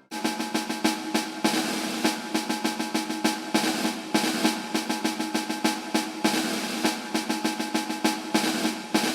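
Background music: a rapid snare drum roll over sustained instrument tones.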